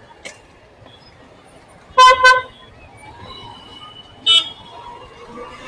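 Vehicle horns in street traffic: a quick double toot about two seconds in and one short blast about two seconds later, over a steady traffic noise.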